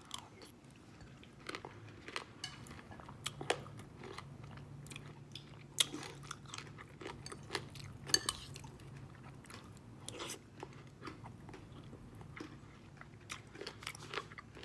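Close-up chewing of a mouthful of pomegranate seeds and berries in coconut water, with irregular crunches and sharp crackles as the seeds are bitten open.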